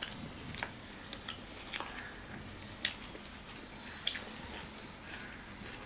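Close-up wet chewing and mouth clicks of a man eating tandoori roti with mutton curry by hand, with irregular short crackles as the soft bread is torn with his fingers.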